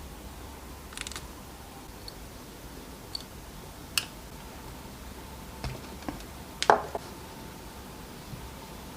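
A few scattered light clicks and taps from small tool parts being handled on a workbench, with a sharper double click about two-thirds of the way in, over a faint steady hum.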